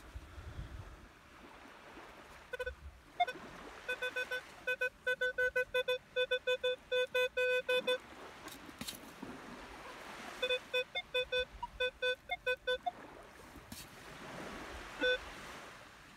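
Minelab Equinox 800 metal detector in Beach 1 mode, giving short target-signal beeps at one pitch as its coil sweeps a target in the beach sand. The beeps come in two fast runs, then a single beep near the end, over a steady background hiss.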